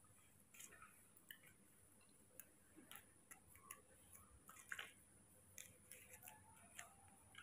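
Near silence with faint, irregular light ticks and rustles: a baby macaque's hands and feet patting and shifting on a plastic mat as it walks.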